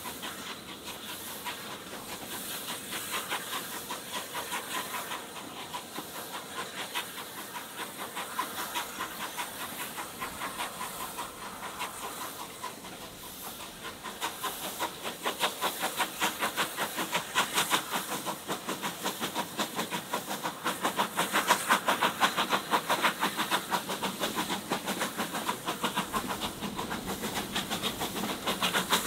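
Steam locomotive running at the head of the train: a fast, even chuff of exhaust beats with steam hiss, heard from the coaches behind. It grows louder about halfway through.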